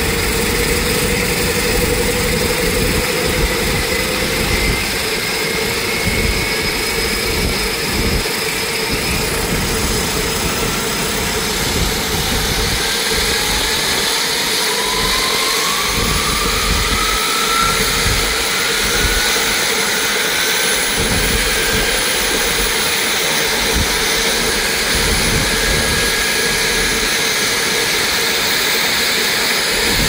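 Pratt & Whitney PT6A turboprop of a Piper PA-46 JetPROP DLX running on the ground, a steady turbine sound over a low rumble. A whine climbs slowly in pitch from about a third of the way in as the engine and propeller speed up.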